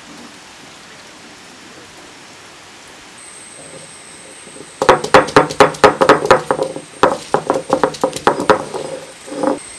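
Stone roller of a flat grinding stone crushing garlic cloves on the wet stone slab: a rapid run of stone-on-stone knocks, about four a second, starting about five seconds in, with one last knock near the end.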